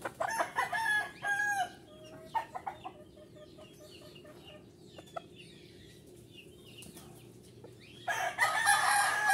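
Roosters crowing: one crow in the first second and a half, another starting near the end, with a few short clucking calls in between.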